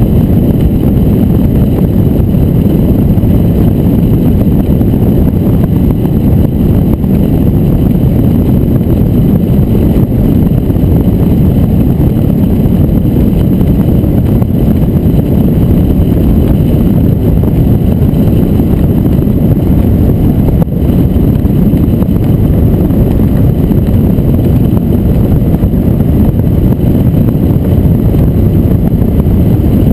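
Loud, steady wind rushing over the microphone of a camera mounted on a hang glider's keel in flight. It is mostly low in pitch and holds steady throughout.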